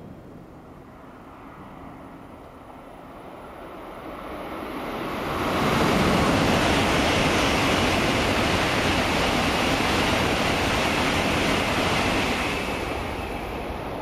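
Tokaido Shinkansen 700 Series high-speed train passing at speed without stopping: a rushing noise that swells over a few seconds, stays loud for about seven seconds while the cars go by, then fades as the train recedes.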